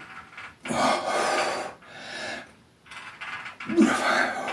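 A man breathing hard through a strenuous chest exercise on a spring bar: three loud, breathy exhales, the second-to-last short, with a brief grunt in the last one near the end.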